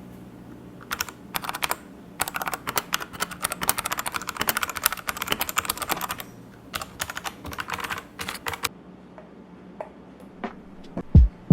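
Typing on a Royal Kludge mechanical keyboard with linear red switches: a fast run of key clacks that starts about a second in, is densest in the middle, thins out and stops a few seconds before the end.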